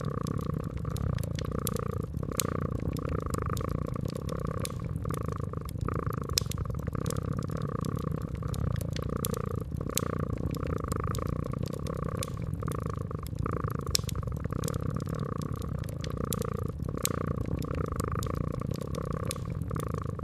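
A cat purring steadily, swelling and easing in a slow, even rhythm, over a wood fire crackling with frequent sharp pops.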